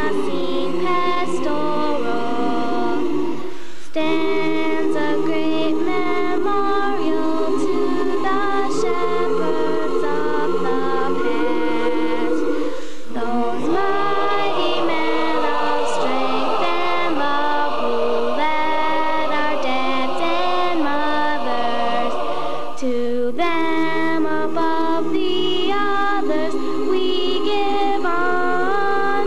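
A small group of young girls singing a song together into microphones, in long held phrases with short breaks between them.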